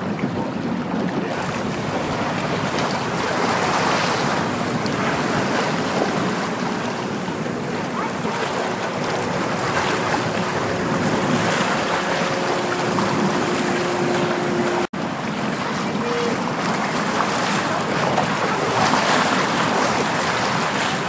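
Wind rushing over the microphone with harbour water noise, a steady loud hiss and rumble. A faint steady hum runs through the middle, and the sound cuts out for an instant about fifteen seconds in.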